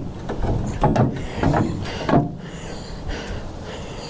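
A man's short, strained breaths and grunts, with knocks from the dolly and ramps, as a dolly carrying a heavy crated wood planer is eased down trailer ramps. The bursts come about a second in, again at a second and a half, and about two seconds in.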